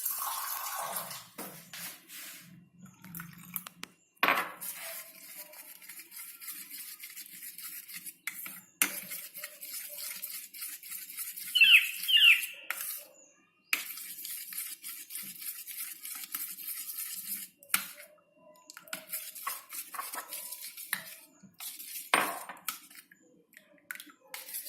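A utensil stirring a thin flour-and-water batter in a bowl, scraping and clinking against the bowl's sides, with a couple of short high squeaks about twelve seconds in.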